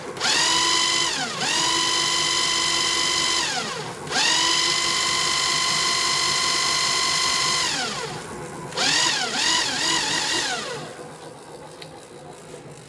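Sinclair C5's electric motor whining as it spins the rear wheel through its drive belt under throttle. Three times the pitch climbs quickly, holds steady for one to three and a half seconds and falls away, the third run the longest. Then come a few quick blips of throttle before it spins down and fades.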